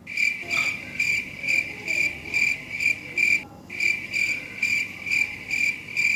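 A high-pitched trill that swells in even pulses about twice a second, breaking off briefly a little past the middle.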